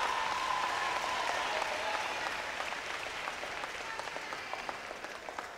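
Audience applauding, dense clapping with a few held cheers in the first couple of seconds, slowly dying away toward the end.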